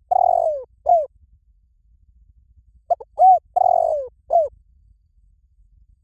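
Spotted dove cooing in two phrases: the end of one right at the start, then a full phrase about three seconds in. Each phrase is a few short coos around one longer coo that falls in pitch.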